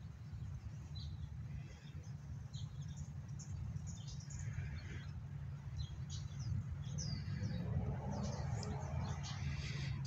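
Small birds chirping in short, scattered high calls, over a steady low rumble.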